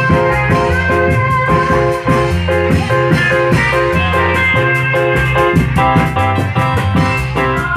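Loud instrumental music for a Reog Dermayu troupe, with held melodic notes over a steady drum beat.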